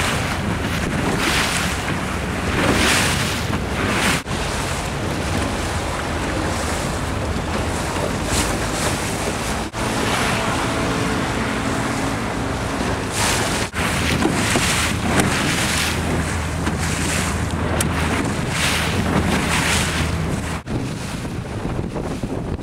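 Wind buffeting the microphone and water splashing around a moving open boat, with a boat engine's low steady hum coming through in the second half. The sound drops out briefly about four times.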